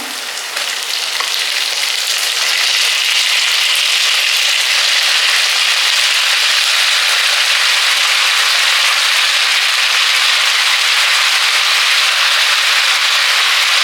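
Wet, long-cut brinjal (eggplant) pieces sizzling loudly in hot oil in a pan, the water from their soaking spitting in the oil. The sizzle builds over the first couple of seconds, then holds steady.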